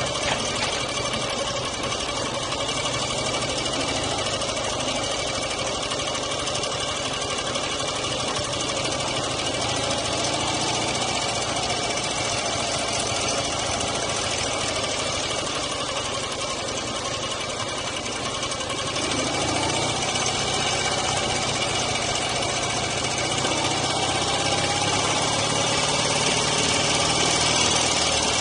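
Dnepr MT-9 sidecar motorcycle's flat-twin engine running while riding. About two-thirds of the way in, the engine note climbs and grows louder, and it rises again near the end as the bike speeds up.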